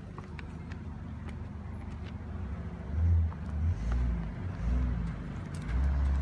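Motor vehicle engine running nearby: a low rumble that swells in uneven surges from about three seconds in.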